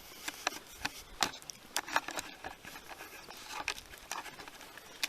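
Footsteps crunching on the tunnel floor: a run of irregular, sharp clicks and scuffs of varying loudness.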